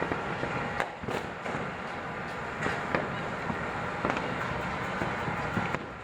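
New Year fireworks and firecrackers going off: a continuous scatter of irregular pops and bangs over a steady crackle.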